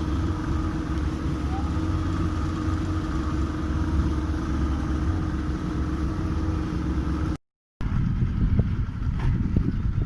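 Boat engine running steadily, a low rumble with a constant hum. About seven seconds in, the sound cuts out briefly, and it comes back as a rougher rumble with a few knocks.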